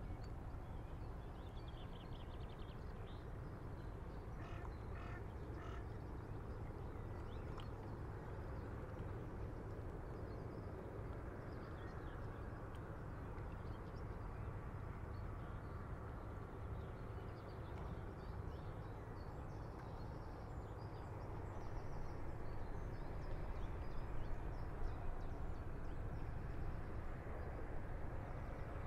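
River water moving against a breakwater with a light breeze over a steady low rumble, and water birds calling now and then. It grows a little louder from about two-thirds of the way in, with more calls.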